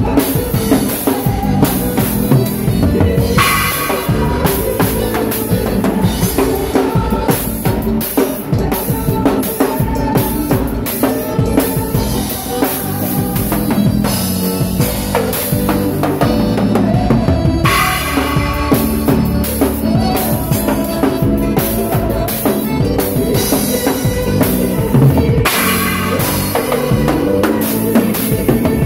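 Drum kit played live in a band: snare, bass drum and tom hits, with three stretches of crashing Krest cymbals. Keyboards play along underneath.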